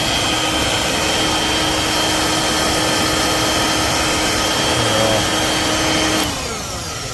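Corded bagless stick vacuum cleaner running steadily with a high motor whine, then switched off about six seconds in, its motor winding down with a falling whine.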